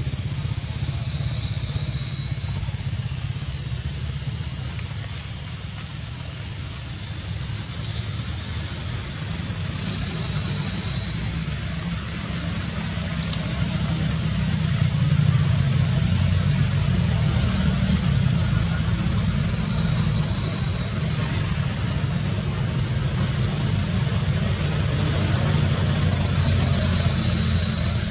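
Loud, steady high-pitched drone of a cicada chorus, its pitch sagging slightly and recovering every several seconds. A low steady rumble runs underneath.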